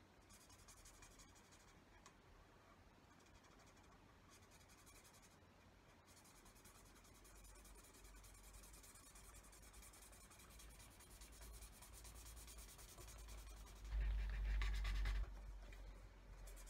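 A pen scratching faintly on paper as it colours in a drawing. About fourteen seconds in, a louder bump and rumble lasts about a second.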